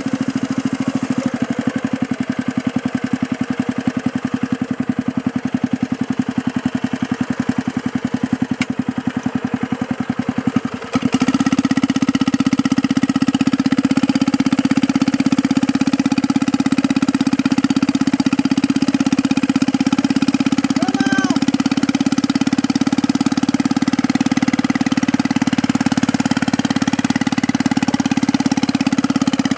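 Small gasoline engine of a homemade motorized wagon go-kart running at a rapid, pulsing idle, then revved up about eleven seconds in and held at high speed, louder and steadier.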